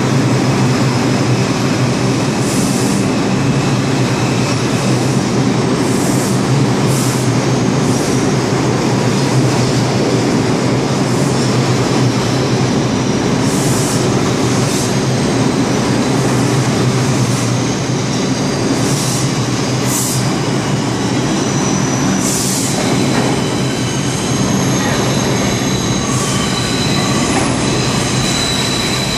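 R142 subway train pulling out of the station, its cars running past close by in a loud, steady rush of wheel-on-rail noise. Short high hisses come through every few seconds, and in the last several seconds thin, high, steady wheel-squeal tones.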